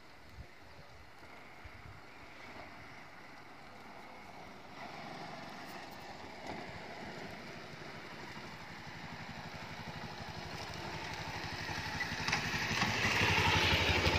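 A motorcycle approaching, its engine growing steadily louder and loudest near the end as it draws close.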